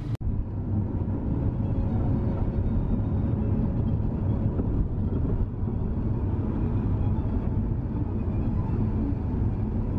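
Wind rumbling on the microphone, a steady low rumble. It starts just after a brief gap at the cut.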